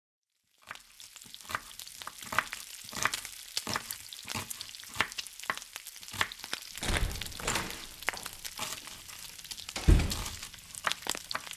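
Radio-drama sound effect of food sizzling and crackling in a frying pan, starting about a second in, with a dull low thump near the end.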